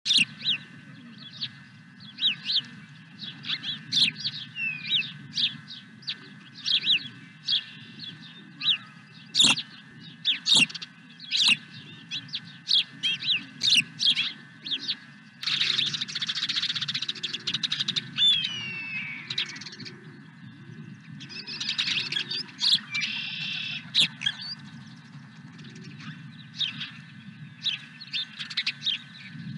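Birds chirping: a rapid string of short, sharp chirps, which becomes a denser stretch of overlapping calls and sliding song about halfway through and again a few seconds later. A steady low hum runs underneath.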